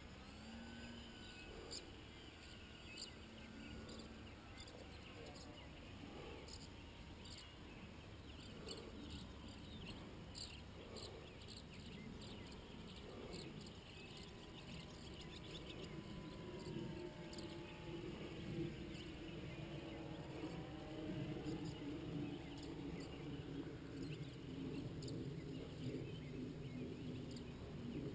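Faint whine of an electric RC model plane's motor and propeller (a Multiplex FunCub) circling overhead, its pitch sliding down and up as it passes and growing louder in the second half. Insects chirp in the grass throughout.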